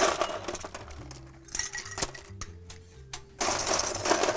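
Ice cubes clattering and clinking into a glass: a burst of clatter at the start, a few single clinks, then another burst of clatter near the end.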